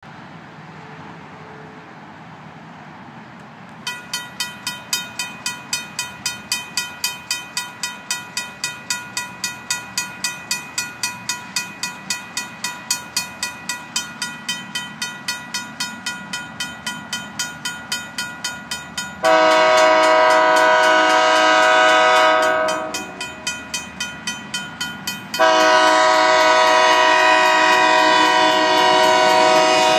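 A RACO mechanical railroad crossing bell starts ringing about four seconds in, with rapid, steady strikes. The approaching Union Pacific locomotive then sounds its multi-note air horn in two long blasts.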